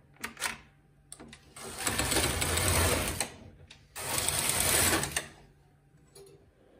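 Double-bed knitting machine carriage pushed across the needle bed and back, two rattling passes, the first about a second and a half long and the second a little shorter, after a few clicks at the start. It is knitting rows of pattern yarn in double-bed jacquard.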